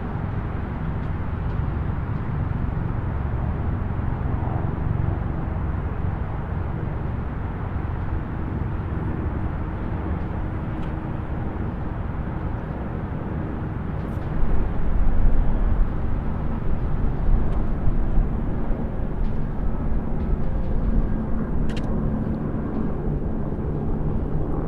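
Distant highway traffic: a steady, low rumble of tyres and engines that swells for a few seconds around the middle of the stretch as heavier traffic goes by.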